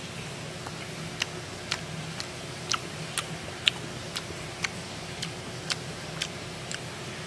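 A person chewing a mouthful of raw fish dipped in chogochujang: small wet mouth clicks about twice a second, over a low steady hum.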